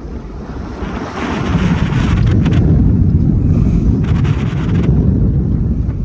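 Wind buffeting the microphone over the rush of water and spray along the hull of a small sailboat, a Contessa 26, sailing close-hauled in big waves. The noise swells about a second in, stays loud and eases near the end.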